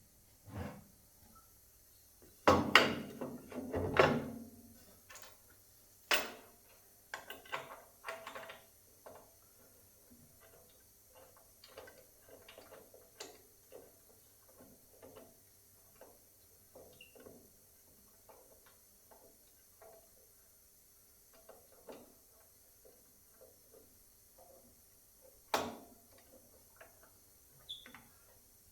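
Scattered knocks and clicks of wooden planks and tools being handled, with a cluster of louder knocks a few seconds in, another about six seconds in and a single sharp knock near the end; no machine is running.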